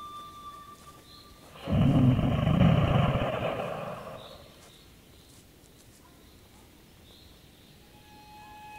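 Red deer stag roaring: one loud, low call of about two and a half seconds that fades away.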